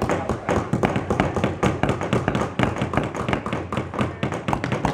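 Several hammers tapping on wood at once, strikes overlapping irregularly at several a second.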